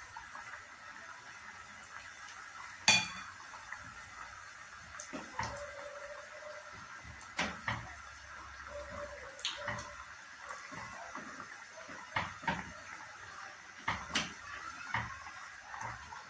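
Breaded chicken cutlets frying in a pot of hot oil with a steady sizzle, under scattered clinks and knocks of tongs against a bowl and plate, the sharpest about three seconds in.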